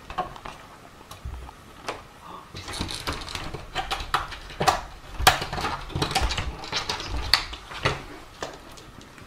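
A pet-door flap knocking and rattling in its frame as a fat cat squeezes through it: a run of irregular light knocks and clicks, the loudest about halfway through.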